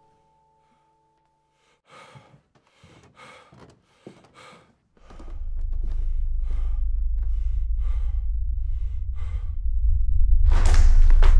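An exhausted male dancer panting hard, quick breaths about two a second starting about two seconds in, ending in one loud, long gasp near the end. From about five seconds in, a deep low rumble comes up under the breathing and grows louder.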